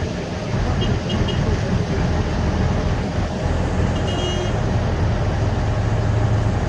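Steady loud rumble of engine noise, with three short high beeps about a second in and a brief high tone around four seconds.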